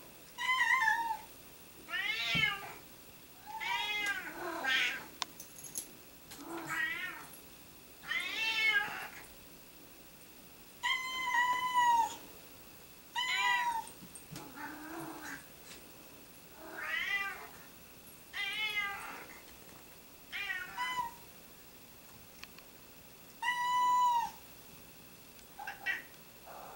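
Short-haired tabby cats meowing over and over, about fourteen meows a second or two apart. Each meow rises and then falls in pitch.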